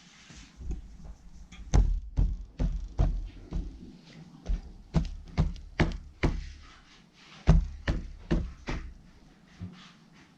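Irregular knocks and taps of hard objects, about one or two a second, with heavier thuds about two seconds in and again past the seven-second mark.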